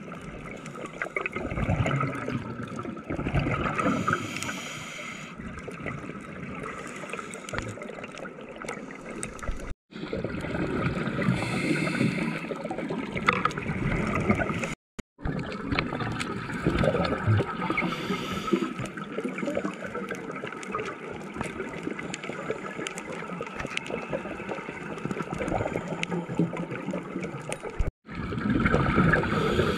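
Underwater sound of a scuba diver breathing through a regulator: exhaled bubbles gurgle in louder rushes every several seconds over a steady underwater hiss. The sound cuts out for a moment three times.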